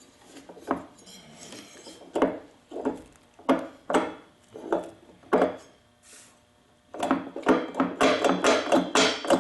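Sharp metallic knocks and clinks, about one a second at first, then a quick run of about four a second from about seven seconds in: the unbolted cylinder of a Husqvarna 150BT's two-stroke engine being knocked and worked while it stays stuck on a piston that seized from running without oil.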